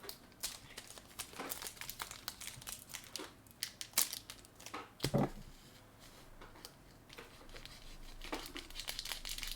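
Foil booster-pack wrapper crinkling and crackling as hands pull and twist at it, the pack not tearing open. A dull bump about five seconds in.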